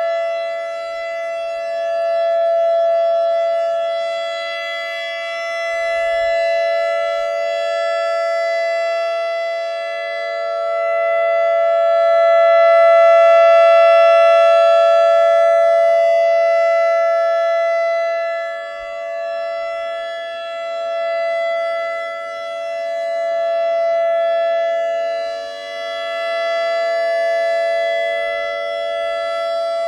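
ACA Alertronic AR-1600 electronic outdoor warning siren sounding its steady alert tone: a held, multi-pitched tone that never rises or falls. Its loudness swells and fades about every ten seconds.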